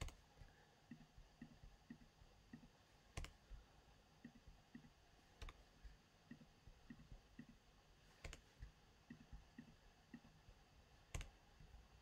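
Faint computer mouse clicks while working in Photoshop: about five sharp single clicks a few seconds apart, with softer ticks between them.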